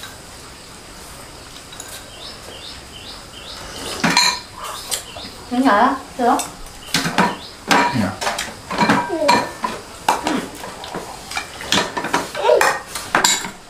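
Chopsticks and ceramic bowls clinking and knocking against each other and a tray during a meal: quiet at first, then a quick, irregular run of clinks starting about four seconds in.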